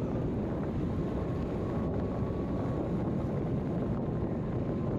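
Steady rumble of a vehicle driving along a highway, with wind buffeting the microphone. A faint steady whine sits over it for the first three seconds or so.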